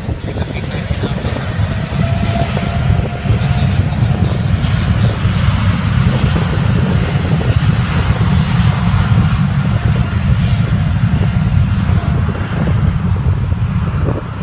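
Boeing 787 Dreamliner's twin jet engines at takeoff thrust during the takeoff roll: a heavy, steady rumble with a hiss above it, growing louder about two seconds in and staying loud.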